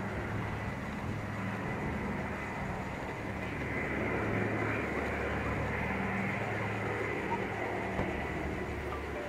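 Consolidated B-24 Liberator's four radial piston engines running with a steady, even drone.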